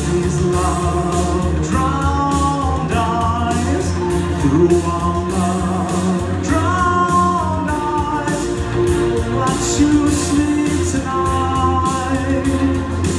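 Male vocal group singing live into microphones over recorded backing music with a steady drum beat and bass.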